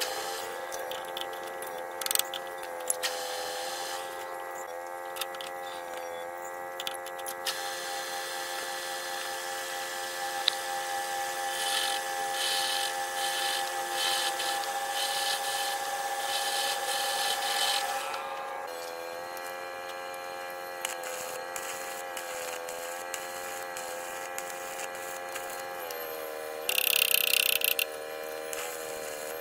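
A metal lathe runs with a steady whine while a carbide cutting tool turns down a steel differential pinion shaft, scraping against the metal. The pitch shifts a little about 18 seconds in, and a loud, harsh burst about a second long comes near the end.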